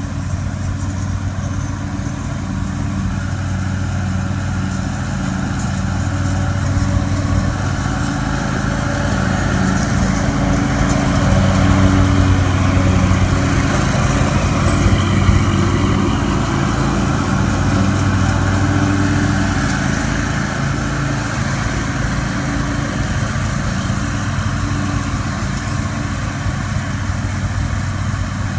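Small gasoline engines of a tow-behind brush mower and the utility vehicle towing it running steadily, growing louder toward the middle and easing off after.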